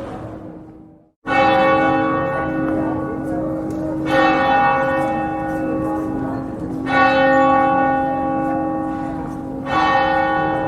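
Church bell tolling, struck four times at about three-second intervals, each strike ringing on into the next. Before the first strike the sound fades to a brief moment of silence about a second in.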